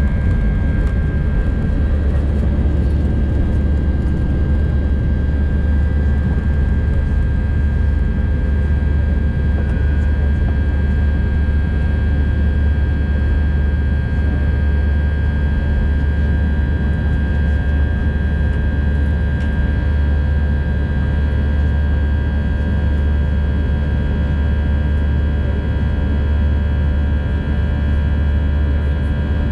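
Steady cabin noise of an Airbus A319 in flight after takeoff, heard from inside the cabin: a loud low rumble of engines and airflow with several thin steady tones above it, unchanging throughout.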